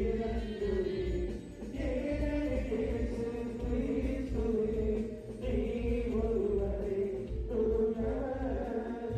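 A choir chanting a slow hymn, amplified through horn loudspeakers, in long held phrases with short breaks between them.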